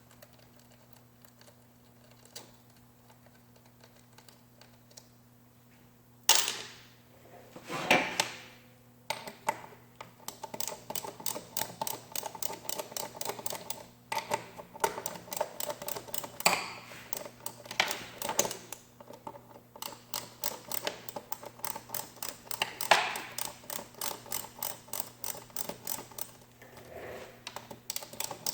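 Rapid run of light, sharp clicks or taps, several a second, typical of hand-tool work on a metal model part, with a few louder scraping swells; a steady low hum underneath.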